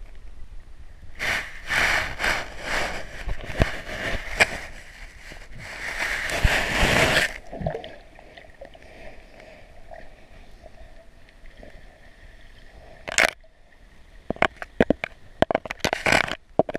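Underwater clicks, knocks and scraping on the camera housing, typical of a crayfish's claws grabbing at the camera. A dense run of them in the first half, a quieter stretch, then one sharp knock and a further cluster of clicks near the end.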